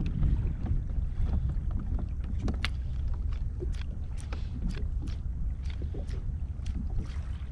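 Wind rumbling on the microphone of a fishing kayak at sea, with sharp ticks coming about two or three a second from about two seconds in.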